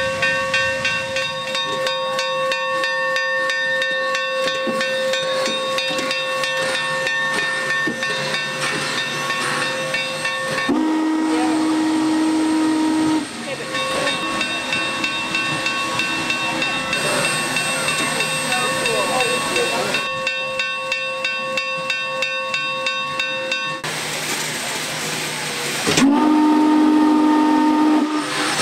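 Union Pacific Challenger steam locomotive standing with a steady hiss of steam, blowing its steam whistle twice: a blast of about two and a half seconds about eleven seconds in, and another near the end. Just before the second blast there is a louder rush of steam.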